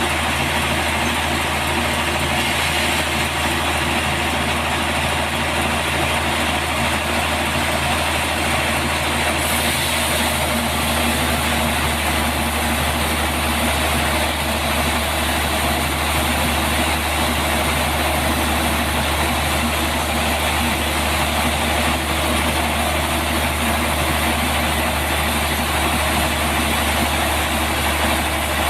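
Bandsaw sawmill running steadily, with a constant low hum under a wide hiss; the high hiss gets brighter a little under ten seconds in.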